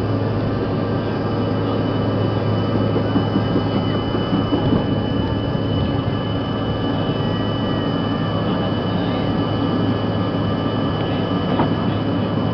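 Cabin noise of a CRJ-200 regional jet on its takeoff roll: the rear-mounted General Electric CF34 turbofans at takeoff thrust, a steady loud rumble with a low hum and a thin, steady high whine.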